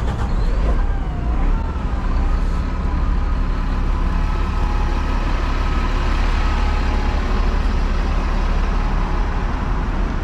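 Steady rumble of city road traffic, with a distant siren wavering up and down and then holding its pitch before fading out about two-thirds of the way through.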